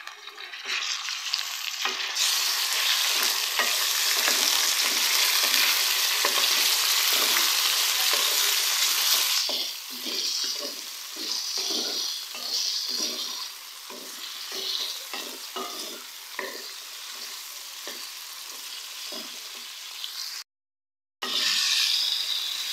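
Raw chicken pieces sizzling in hot oil with fried onions and ginger-garlic paste in a metal kadai, stirred with a wooden spatula. The sizzle is loudest for the first several seconds after the chicken goes in, then settles to a quieter fry with repeated spatula strokes through the pan. The sound drops out briefly near the end.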